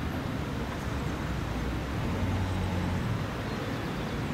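Grenoble tram approaching from a distance on grass track: a low steady running hum with outdoor background noise, a little stronger about halfway through.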